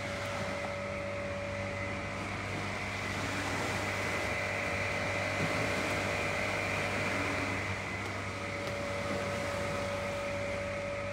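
Steady mechanical hum made of a few constant tones over an even background hiss, a little louder in the middle.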